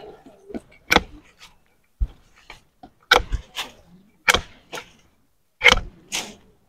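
A string of sharp, irregular snaps and clicks as a branch is cut off a soursop tree with a pruning tool. Some snaps come in pairs about half a second apart.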